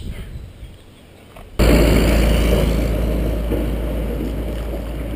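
Wind buffeting a helmet-mounted GoPro's microphone: a loud low rumble with hiss that starts suddenly about a second and a half in and slowly eases off.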